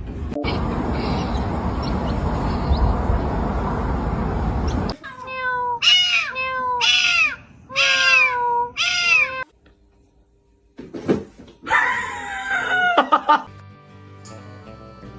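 A steady rushing noise for about five seconds, then a cat meowing four times in quick succession, each call rising and falling in pitch, and after a short pause one more drawn-out yowl. Faint music comes in near the end.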